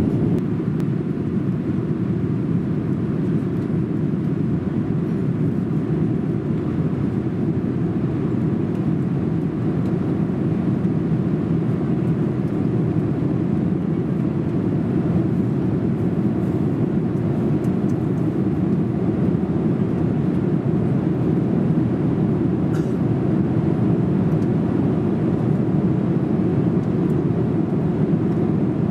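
Steady cabin noise inside a Boeing 787-8 airliner in flight: a low, even rush of engine and airflow noise, with one faint click about two-thirds of the way through.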